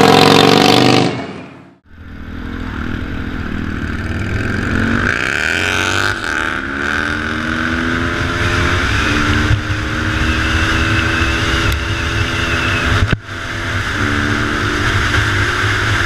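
Motorcycle engines revving and accelerating: a loud burst that cuts off about two seconds in, then an engine climbing in pitch and holding steady under a constant rush of wind on the microphone.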